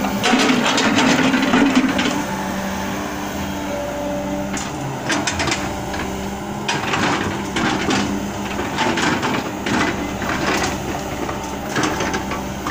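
Sumitomo hydraulic excavator running steadily as its log grapple handles rubber-wood logs, with repeated wooden knocks and clunks as the logs strike one another.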